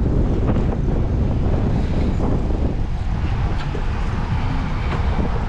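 A car driving along a city street: a steady low rumble of road and engine noise with wind buffeting the microphone.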